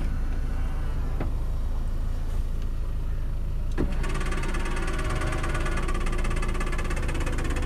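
Mini Cooper's power-folding door mirror motor whirring steadily as the mirror folds in, starting with a click about four seconds in, over the low hum of the idling engine. A faint click comes about a second in.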